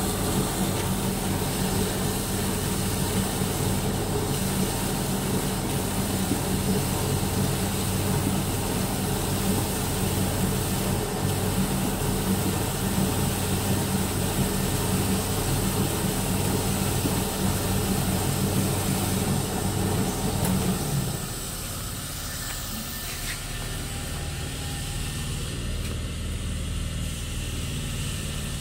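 SD-01 crinkle-cut paper filler machine running steadily: a motor hum with a noisy mechanical rush as its rollers cut paper into crinkled strips. About two-thirds of the way through, the sound drops to a quieter, lower hum.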